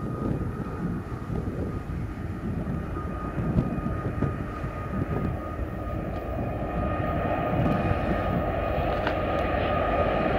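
Distant diesel locomotives hauling a double-stack container train, their engine rumble growing steadily louder as the train approaches, with a faint steady high whine over it.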